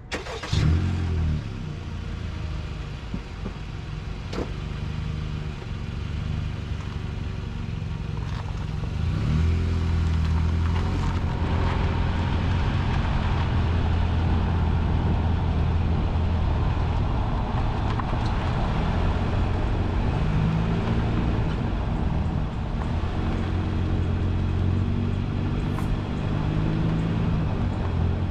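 2022 Honda Civic Sport's four-cylinder engine and tyres on the road while driving, picked up by a microphone mounted outside the car at the front wheel. A steady engine drone with road and tyre noise, the engine pitch rising as it accelerates about nine seconds in and again from about twenty seconds, after a brief knock at the very start.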